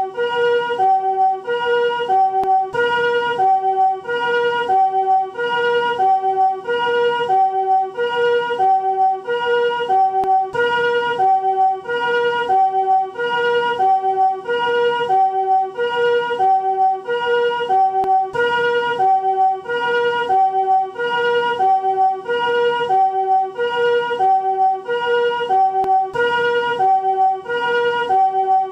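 Japanese ambulance electronic siren, newest type, sounding its two-tone hi-lo 'pi-po' call as chords rather than single tones. A higher chord and a lower chord alternate steadily, each pair lasting a little over a second.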